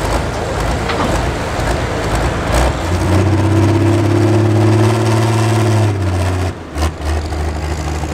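Diesel engine idling. Its steady drone grows stronger for a few seconds in the middle, drops out briefly near the end, then comes back.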